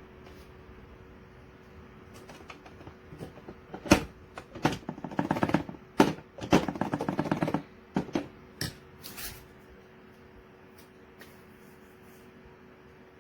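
A sharp knock, then a quick run of rattling clicks of hard objects being handled, dying away to a few last clicks; a faint steady hum runs underneath.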